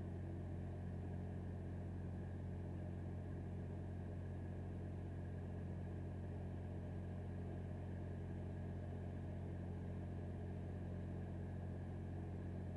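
An engine running steadily at idle: a low, even hum that does not change.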